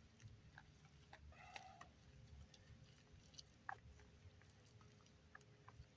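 Near silence: a faint low background with a few scattered faint clicks and ticks.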